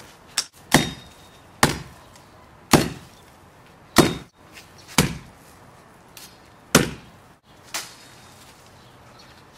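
Cold Steel Barong machete chopping through dried brush and twigs: about seven sharp chops, spaced irregularly a second or so apart, with the heavy blade cutting straight through.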